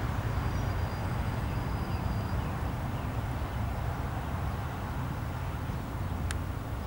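Dassault Falcon 7X's three turbofan engines running at taxi power as the jet backtracks along the runway: a steady low rumble, with a faint thin whine for a couple of seconds near the start and a single sharp click near the end.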